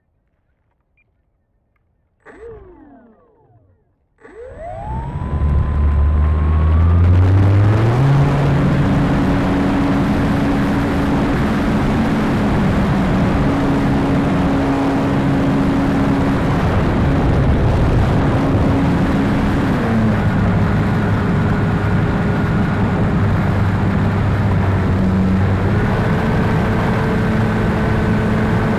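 Electric motor and propeller of an E-flite Pitts radio-controlled biplane, heard from a camera on the plane. About two seconds in there is a short blip whose pitch falls away. About four seconds in the motor spins up with a rising whine to full power for takeoff. It then settles into a steady drone over wind rush, with its pitch stepping down around twenty seconds in and back up around twenty-five.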